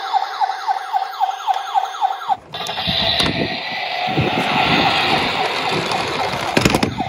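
Electronic siren of a toy ambulance wailing in rapid falling sweeps, about three a second. About two and a half seconds in it gives way to a rumbling, hissy noise as the toy rolls down a wooden slope, and the siren sweeps come back near the end.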